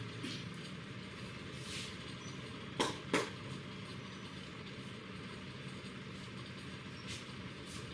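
Hands working on a head during a head massage. A little under three seconds in come two loud, sharp snaps about a third of a second apart, amid softer brushing strokes, over a steady low hum.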